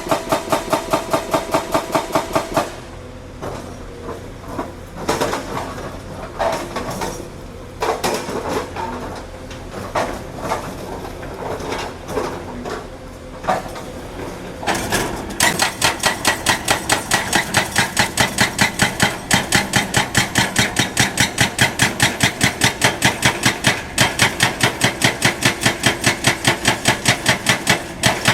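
Heavy construction machinery making a fast, even hammering, about five knocks a second. It breaks off after about two and a half seconds into irregular clanks and clatter, then resumes at about the same rate a little past halfway and keeps on.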